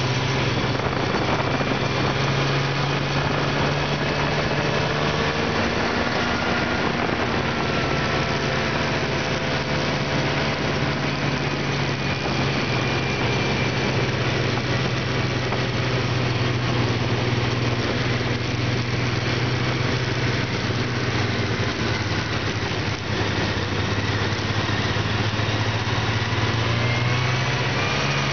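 Snowmobile engine running steadily at cruising speed, heard from the rider's seat over a steady hiss, its pitch shifting slightly now and then.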